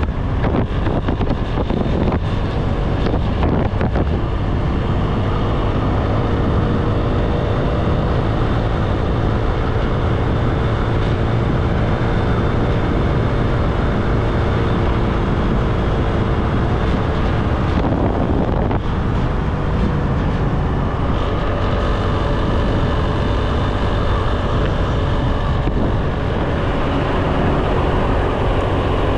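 Motorbike engine running steadily at riding speed, with wind and road rush on the camera's microphone.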